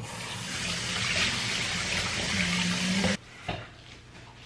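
Kitchen faucet running into a stainless steel sink while hands are washed under the stream. The water is shut off abruptly about three seconds in.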